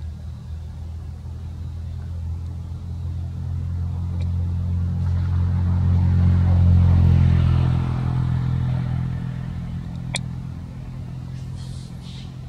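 A motor vehicle's engine passing by: a low, steady engine note that grows louder to a peak a little past the middle and then fades away. A single sharp click sounds near the end.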